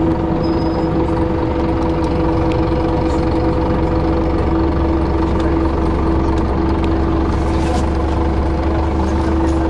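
City bus engine running with a steady drone, heard from inside the passenger cabin: a low rumble under a constant hum.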